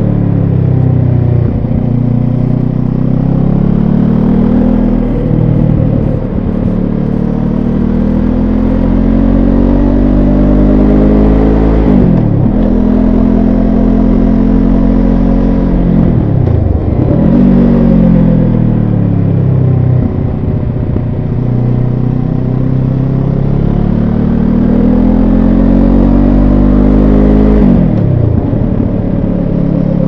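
Benelli TRK 702 X's 698 cc parallel-twin engine pulling along a winding road. Its pitch climbs steadily under throttle and drops sharply about six times, then climbs again.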